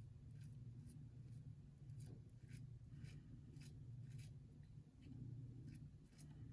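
King C. Gillette double-edge safety razor scraping through lathered stubble on the neck in short, faint strokes, about two a second, over a low steady hum.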